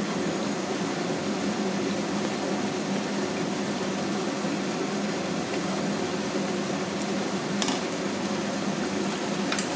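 Onion paste sizzling and bubbling in hot oil in a kadhai as it is sautéed, a steady hiss over a low hum, with a few light taps of the spatula against the pan in the last few seconds.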